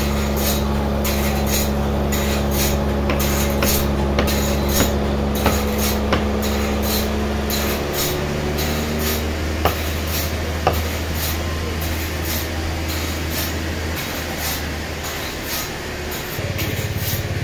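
Steady low drone of a running engine or motor, its tone changing a couple of times in the second half, with faint regular ticking and a few sharp knocks.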